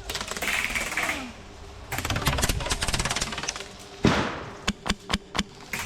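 Airsoft guns firing on full auto, a fast rattle of shots in two long bursts, followed by a few single shots near the end.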